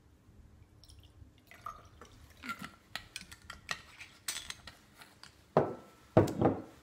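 Glass reagent bottles and small glass beakers clinking and tapping, with a short trickle of solution poured into the beakers and caps screwed back on. Near the end come two louder knocks as glass bottles are set down on the wooden bench.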